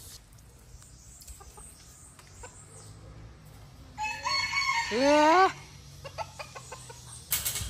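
A rooster crowing once, about four seconds in, for about a second and a half, its pitch rising toward the end of the call.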